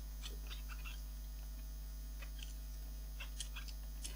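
Steady low mains hum with a scattering of faint, light clicks and ticks from small parts being handled.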